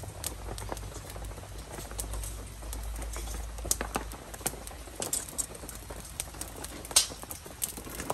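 Irregular light clicks and clinks of metal tongs and a wire grill rack being handled and set down over a wood-fired cooking stove, with one sharper clink about seven seconds in.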